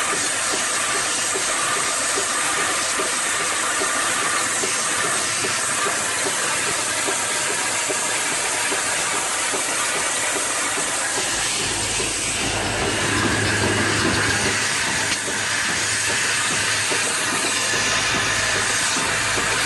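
High-speed flip-top cap assembly machine running: a fast, even clatter of parts over a steady hiss, with a deeper hum joining about halfway through.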